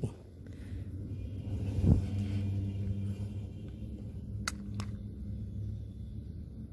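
A motor running steadily in the background with a low, even hum, swelling for a moment about two seconds in. Two sharp clicks come a little past the middle.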